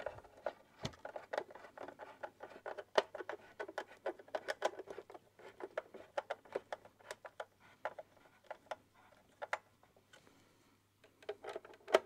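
Hand screwdriver driving screws back into the plastic base of a Hoover Senior 652a upright vacuum cleaner: a run of small, irregular clicks and scrapes, with a lull about two-thirds of the way through.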